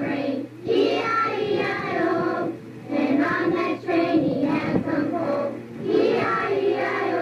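A song sung by high voices with music behind it, in phrases broken by short pauses.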